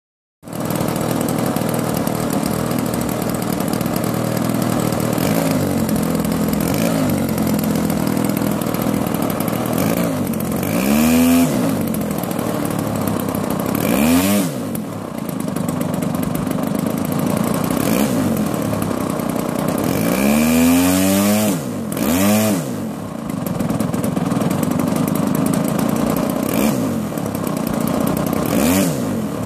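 Radio-controlled 3D aerobatic airplane with a 60cc DLE gasoline two-stroke engine, running continuously. The throttle is punched up and eased back again and again, so the engine note swells and falls, as in hovering on the prop.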